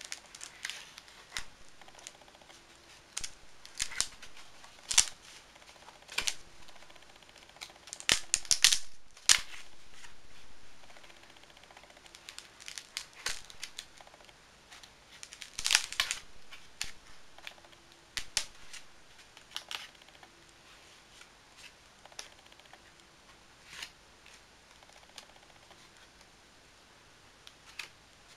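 Pages of a paper art journal, primed with gesso and painted, being turned by hand: irregular paper rustles and flicks, loudest in clusters about 8 and 16 seconds in, then growing sparser.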